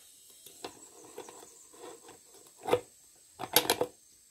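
A new metal rear sprocket being fitted onto a Honda CB150RR's rear wheel hub: light scrapes and taps, a sharper knock about two and a half seconds in, then a quick run of clinks as it is pressed onto the hub.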